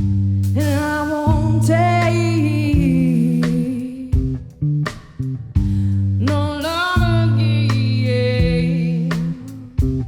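A song performed live: a singer sings two long phrases over plucked or strummed guitar with steady low held notes underneath.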